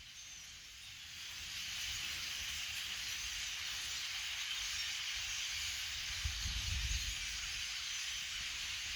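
Steady rushing hiss of a huge flock of birds, the massed sound of their wings and calls, swelling about a second in and then holding. A few low bumps of wind on the microphone come about two thirds of the way through.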